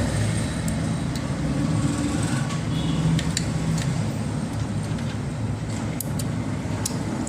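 Steady low background rumble, with a few light, sharp clicks from handling the plastic push-pin fasteners of a CPU heat-sink cooler.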